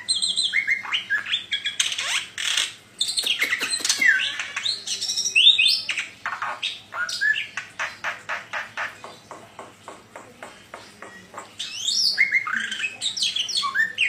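A caged white starling (jalak putih) singing: sharp whistles and slurred, gliding notes, then several seconds of quick, evenly spaced clicking notes in the middle, before it breaks into whistling again near the end.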